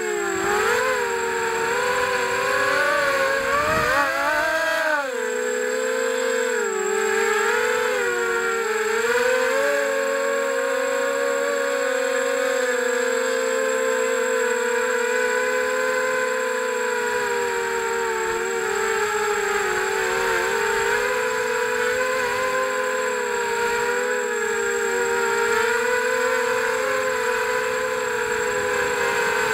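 FPV quadcopter's electric motors and propellers, heard from its onboard camera: a continuous whine of several tones together. Its pitch rises and dips with the throttle several times in the first eight seconds, then holds fairly steady.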